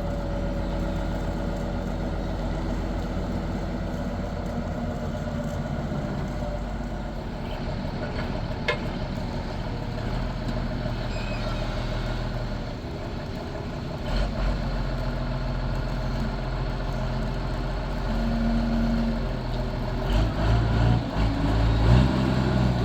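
Heavy diesel engine idling steadily, with a short sharp click about nine seconds in and the engine getting louder in short surges near the end.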